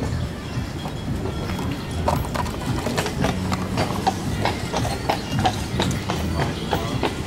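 Horse's hooves clip-clopping on pavement, about three beats a second, over a low steady rumble.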